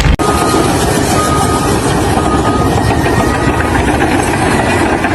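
A heavy machine's engine running loudly and steadily. Four faint short beeps, about one a second, sound over it during the first few seconds.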